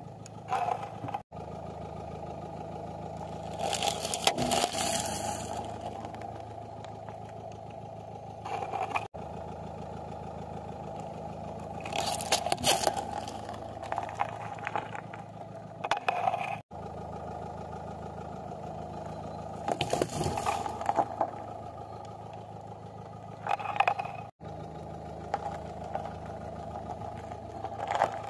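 A car creeping on a gravel road with its engine running steadily. About six bursts of crunching and crackling, roughly every four seconds, come as the tyre rolls over and crushes objects such as plastic tubs filled with a red paste.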